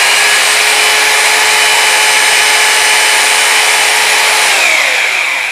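Aimex 26 mm rotary hammer drill's motor running with no load, its trigger locked on, with a steady whine. About four and a half seconds in, the trigger lock is released and the motor spins down, falling in pitch and fading out.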